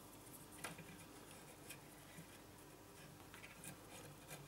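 Near silence with a few faint scattered ticks and light taps, the clearest about two-thirds of a second in, as a flux brush is dabbed along the pins of a surface-mount chip on a circuit board.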